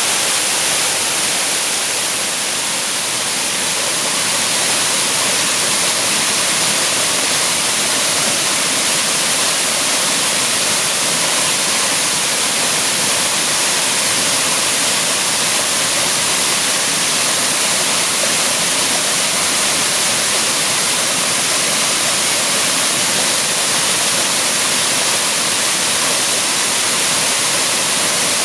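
Waterfall pouring steadily: a loud, even rush of falling water, strongest in the hiss.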